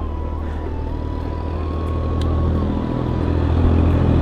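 Motorcycle engine running with a low, steady hum that gets louder about three seconds in as it picks up, with a thin steady whine above it.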